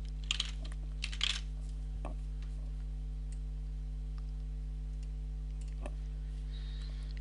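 Computer keyboard typing, a quick run of keystrokes that stops about a second and a half in, followed by a few isolated single clicks. A steady low electrical hum runs underneath.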